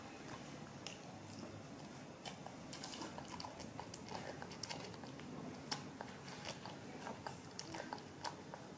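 A young pet macaque feeding with its mouth in a plastic bowl, chewing and smacking its lips: irregular wet clicks, a few a second, busier from about two seconds in.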